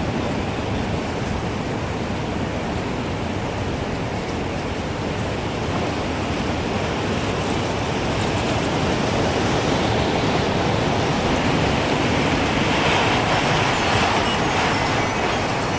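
Gusting wind, a steady rushing that swells and brightens over the last few seconds. Faint, high wind-chime tinkles come in near the end.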